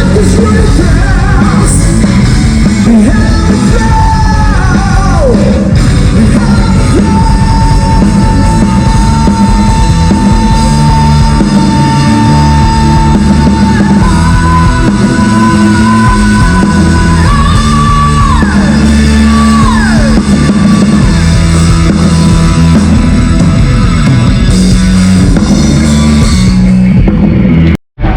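Loud rock music from a full band: distorted guitar, bass, drums and a sung, partly yelled vocal. A long high note is held for several seconds in the middle, with a few falling slides around it. The sound cuts out for an instant near the end.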